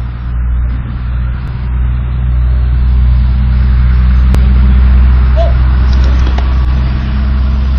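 A low, steady engine drone, like a motor vehicle running close by, swelling slightly partway through.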